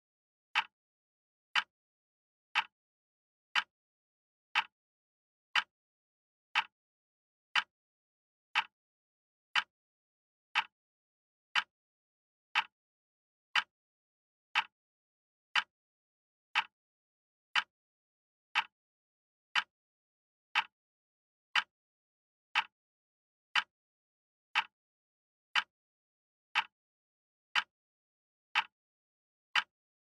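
Acctim radio-controlled quartz wall clock ticking, one sharp tick each second as the second hand steps, with silence between the ticks.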